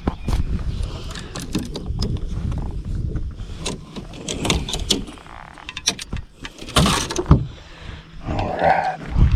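Handling noise from a chest-mounted action camera: clothing rubbing and scattered knocks and clicks as the wearer moves, over a low rumble.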